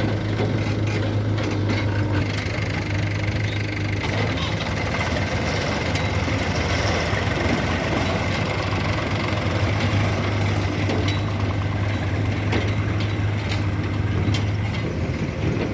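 Heavy diesel engine running steadily with a low hum, with a few brief clanks over it.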